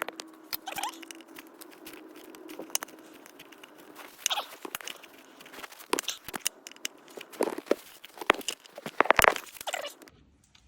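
Irregular metallic clicks and scrapes of a flathead screwdriver working a rounded-off bolt out through a slot cut into its head, with short bursts of harder scraping several times.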